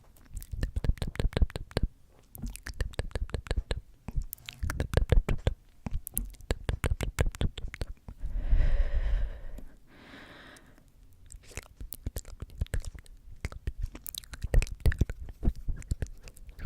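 Close-miked ASMR mouth and hand sounds: rapid runs of crisp "tk tk" clicks and taps. About halfway through a long breathy blow into the microphone, followed by a softer, shorter one.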